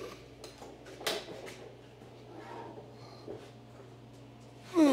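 A few faint clicks and knocks of metal as the head of a Harbor Freight horizontal bandsaw is handled and pushed on, the sharpest about a second in, over a steady low hum.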